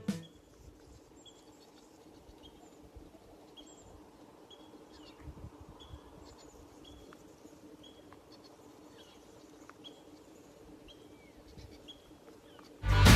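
A bird's short high chirp, repeated steadily about once or twice a second, over quiet rural ambience with a faint low hum underneath.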